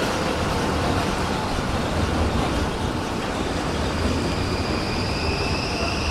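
VBZ Tram 2000 tram running with a steady rumble of wheels and running gear. About halfway through, a faint rising whine begins as it picks up speed.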